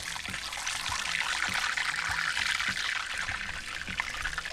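Chicken wings deep-frying in hot cooking oil, about 350°F, in a cast iron skillet: a dense, steady sizzle and crackle of spattering oil that grows louder about a second in.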